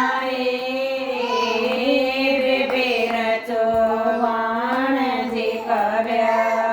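A woman singing a Haryanvi folk song, holding long drawn-out notes that waver and bend slowly in pitch, with no instrument accompanying her.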